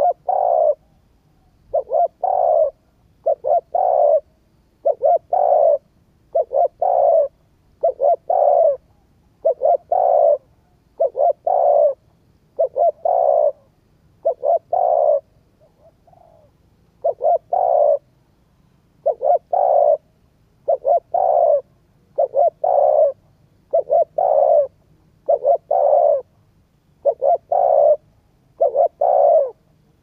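Spotted dove cooing in a rapid, regular series of short, mostly doubled coos, about one phrase every one and a half seconds, with a short break near the middle. This is the rapid 'thúc gù' cooing that keepers use to rouse wild doves.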